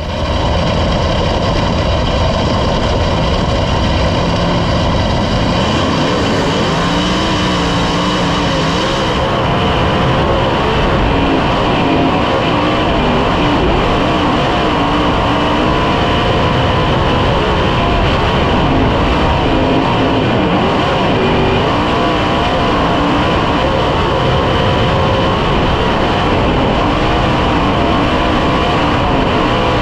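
Onboard sound of a 410 sprint car's 410-cubic-inch V8 running hard at racing speed, its pitch rising and falling through the laps.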